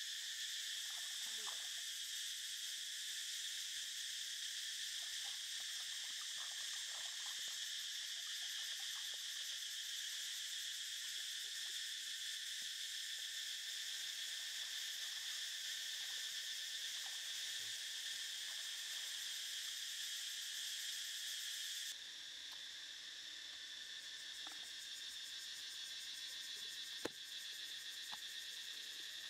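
Steady, high-pitched chorus of insects droning without a break, dropping a little in level about three-quarters of the way through. Faint small splashes and handling sounds from meat being washed in shallow creek water, and a single sharp knock near the end.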